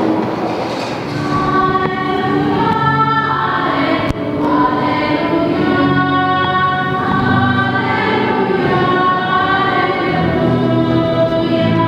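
Church choir singing a hymn during Mass, the voices moving between long held notes.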